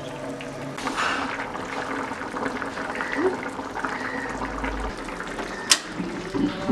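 Hilsa fish curry boiling in a pan: a steady liquid bubbling. A single sharp click comes about five and a half seconds in.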